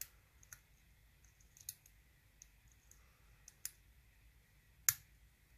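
Hook pick lifting pin tumblers in a Sparrows Revolver practice lock held under a tension wrench: about six small, sharp metal clicks at irregular intervals, the loudest near the end, as pins set at the shear line.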